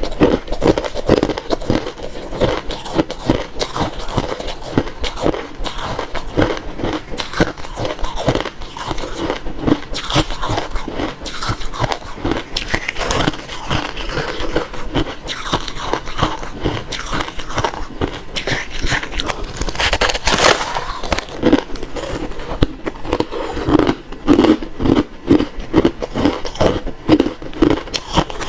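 Refrozen crushed ice being bitten and chewed close to the microphone, a rapid, unbroken run of crunches with one sharper crack about two-thirds of the way through.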